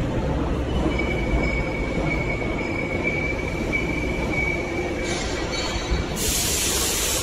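Steady workshop machinery noise: a low rumble with a thin high whine that sets in about a second in and fades after about four seconds, and a burst of hiss near the end.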